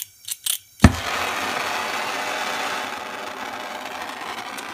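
Gas torch being lit: a few quick igniter clicks, then a sharp pop as the gas catches a little under a second in, followed by the steady hiss of the burning flame.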